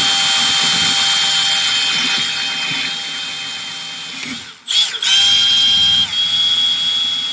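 Milwaukee Fuel cordless drill running steadily with a high whine as it bores a small hole slowly through a plastic kayak hull; it stops briefly about two-thirds of the way in and then starts again.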